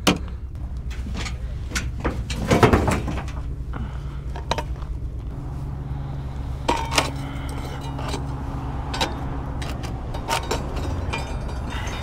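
Irregular knocks, clicks and light clinks of fishing gear being handled and carried across granite jetty boulders, over a steady low rumble. The loudest knock comes about two and a half seconds in.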